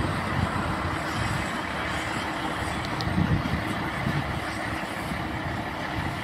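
Double-decker bus running with a steady low rumble.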